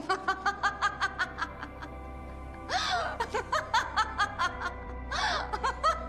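A woman laughing hard in quick runs of pitched "ha" notes, about five a second, catching her breath with a gasp twice in between.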